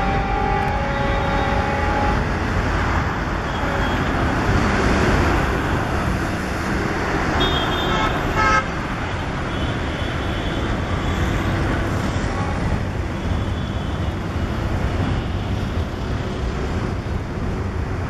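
Passenger coaches of an express train rolling away on the track, a steady wheel-on-rail rumble slowly easing off. Brief high-pitched tones sound about eight seconds in.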